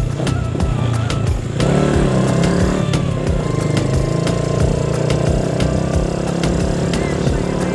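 Yamaha scooter's engine running as it is ridden; about one and a half seconds in the throttle opens and the engine note becomes steadier and stronger. Many short clicks sound over it.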